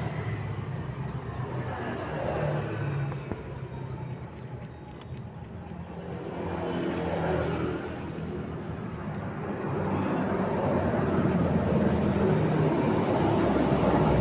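Motor vehicle engine noise, swelling and fading a few times and loudest near the end.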